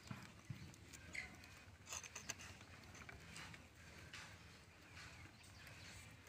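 Quiet, with faint scattered clicks and rustles of lettuce leaves being handled, torn and chewed.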